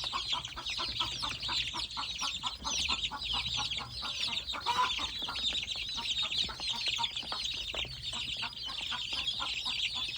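A brood of baby chicks and magpie ducklings peeping: a dense, constant chorus of many short high peeps, with a steady run of lower peeps at about three a second beneath it.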